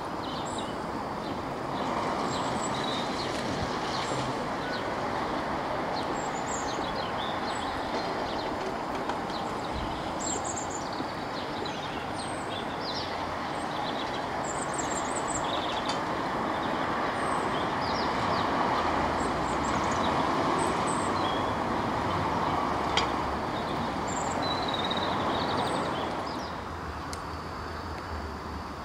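A steady vehicle rumble that swells and then drops off near the end, with birds chirping over it.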